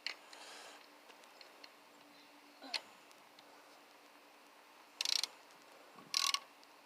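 Hand socket ratchet clicking as its handle is swung back: a single click under three seconds in, then two short rapid bursts of pawl clicks near the end.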